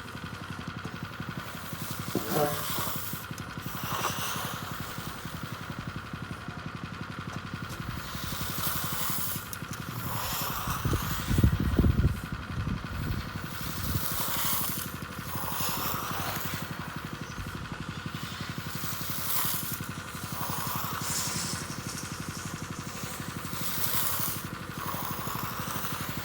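Petrol-engined power trowel running steadily as it floats and trowels the concrete slab. About halfway through, a louder, deeper surge lasts about a second.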